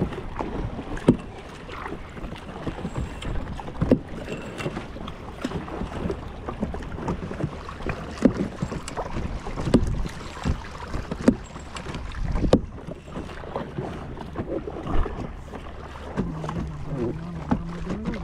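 Kayak being paddled: irregular splashes and knocks from the paddle, with wind on the microphone.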